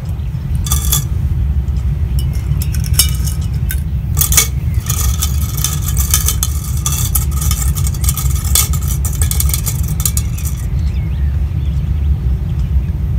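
Treble fishing hooks clinking and scraping against a glass dish as they are tipped in and stirred: a few clinks in the first seconds, then a dense run of rapid clinks from about five to ten seconds in. A steady low rumble runs underneath.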